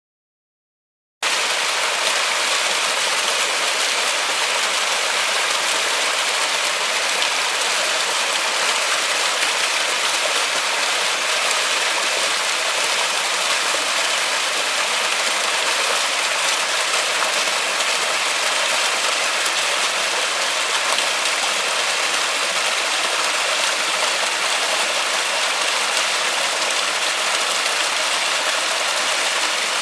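Steady rain falling in a forest, an even dense hiss that cuts in suddenly about a second in after silence.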